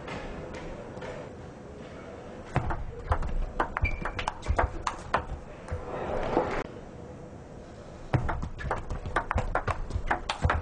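Celluloid table tennis ball clicking in quick succession off rubber-covered bats and the tabletop during rallies, in two runs of rapid clicks with a pause in between.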